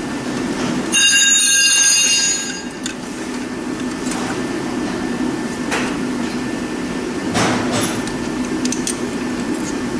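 A turbo actuator being fitted by hand: a loud, high-pitched metallic squeal lasting about a second and a half near the start, then a few light metal clicks, over a steady low hum.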